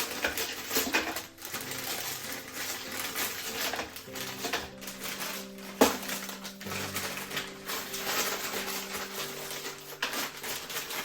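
Soft background music with held notes, over a run of small clicks and clinks from objects being handled, with one sharper knock about six seconds in.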